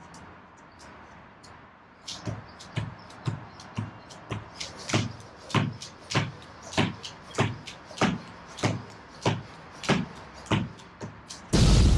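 Beaded jump rope clacking on a tile floor during double unders, starting about two seconds in: a steady rhythm of sharp bead strikes with the jumper's landings, a strong beat roughly every half second with lighter clacks between. Near the end a sudden loud burst of noise cuts in.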